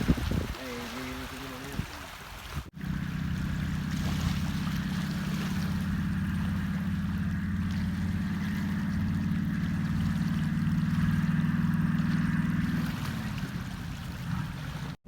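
An engine running at a steady speed, a constant low hum that fades away near the end.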